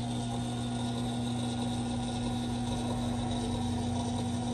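Pandjiris Model 30-6 welding positioner's electric tilt drive running steadily as the table tilts, a constant motor hum with a higher steady whine from the gearing.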